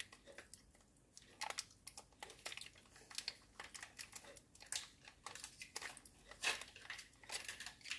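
Faint, irregular crackles and clicks of close-up eating, starting about a second in: fried chicken and kimchi being chewed and handled.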